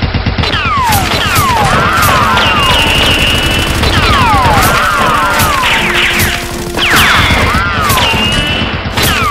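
Gunfire sound effects: rapid shots with swooping, falling whistles, in a pattern that repeats about every three seconds, over background music.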